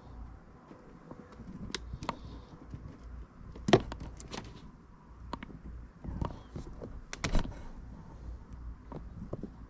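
Scattered clicks and knocks of parts being handled inside a car, the loudest a sharp knock a little under four seconds in and two more around seven seconds in.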